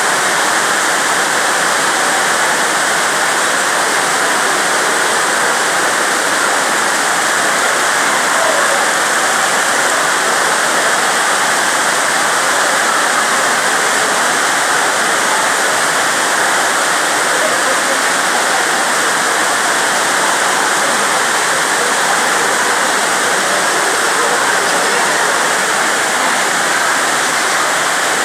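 Loud, steady rushing noise with no breaks or changes.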